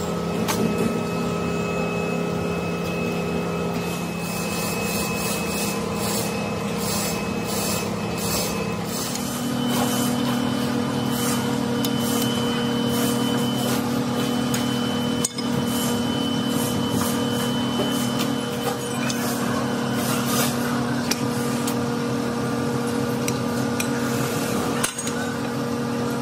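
Metalworking machinery in a wheel-hub factory, running steadily: a hum of several held tones over a continuous rough noise, with the mix of tones changing about nine seconds in.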